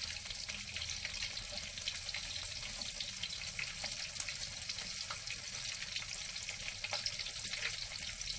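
Batter-coated tofu deep-frying in hot oil in a wok: a steady, fine crackling sizzle.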